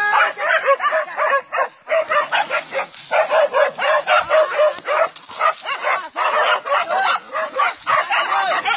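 Hunting dogs barking and yelping rapidly without a pause, the short high barks coming several a second and overlapping.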